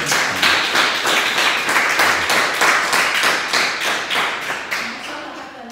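A small audience applauding, many hands clapping together; the applause tapers off near the end.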